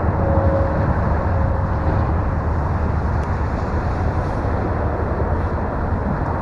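The faint, steady whine of a Carbon Cub S2 RC plane's electric motor and propeller in flight, fading out about two seconds in, over a steady low rushing noise.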